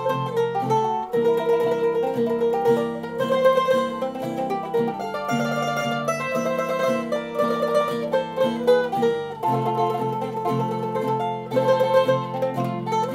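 Instrumental music on plucked strings: a melody over a steady stepping bass line, with no singing.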